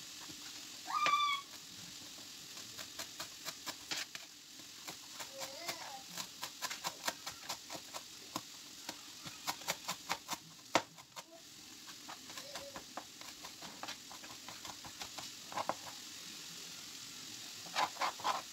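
Kitchen knife chopping fresh herbs on a plastic cutting board: quick, even taps of the blade on the board, about four a second, pausing briefly near the middle, over a steady sizzle from the pan on the stove. A brief voice sounds about a second in.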